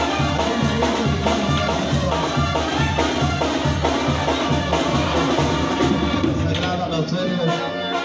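Brass band playing, with a tuba bass line repeating under the horns and drums keeping a steady beat.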